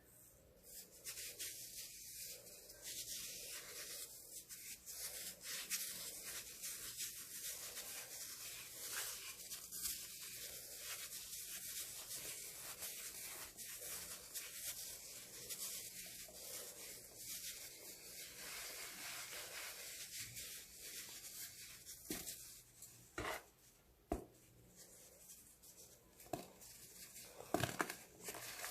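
Baking soda slabs being crushed and crumbled: a long stretch of steady gritty rubbing and grinding, then separate sharp crunches in the last few seconds.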